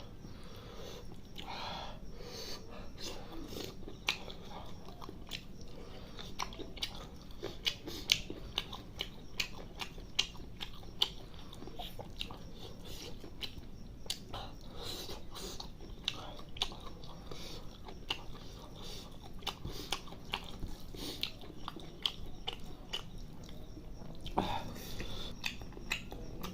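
A person chewing mouthfuls of spicy chicken liver curry and rice, close to the microphone, with many short mouth clicks and smacks.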